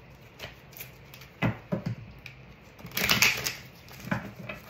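Tarot cards being shuffled and handled: a few quick card clicks and taps about a second and a half in, a longer papery rustle around three seconds, and another click near the end.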